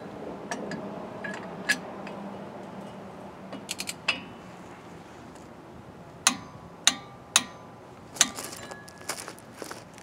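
A wrench with a large socket ratcheting and clinking as it tightens the outer lock nut on a truck's rear axle hub. Several sharp, ringing metal clicks come in the second half.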